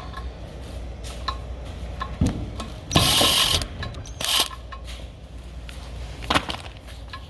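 Hand-tool and parts-handling noises while a tire-pressure sensor is removed from a wheel: scattered clicks and clinks, with a short noisy burst about three seconds in and a briefer one a second later.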